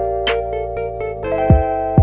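Background music: electric piano or keyboard chords over a steady drum beat.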